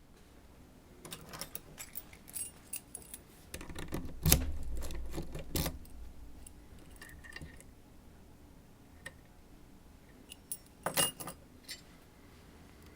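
Small metal parts clinking and jangling, like keys or lock hardware being handled, in short scattered bursts. The loudest is a little after four seconds in, and another cluster comes around eleven seconds.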